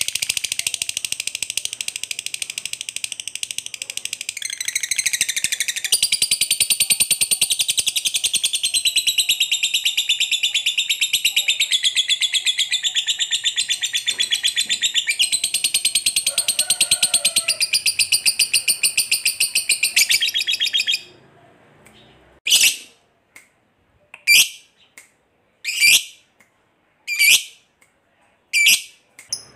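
Lovebird giving a long ngekek, a rapid high chattering trill held without a break for about twenty seconds. It then stops and gives a string of short, sharp chirps about every second and a half.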